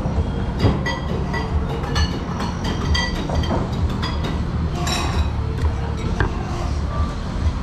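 Water poured from a glass bottle into a stainless steel cup of ice, with many small ringing clinks of ice and glass against the metal cup through the first five seconds or so, over a steady low rumble.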